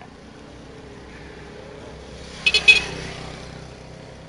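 A motor vehicle passing on the street, its noise swelling and fading. At its closest come three quick, high horn beeps.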